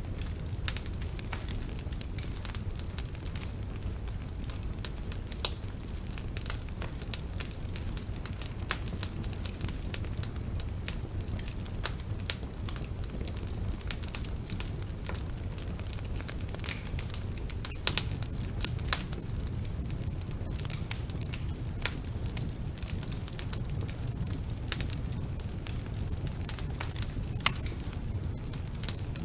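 Wood fire burning in a fireplace: a steady low rumble of flames with frequent irregular crackles and pops, a few sharper pops standing out.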